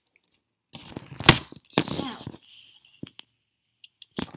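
LEGO raptor figures and plastic pieces being handled and set down on a wooden table: rustling with plastic clacks, one sharp knock about a second in, and a run of quick clicks near the end.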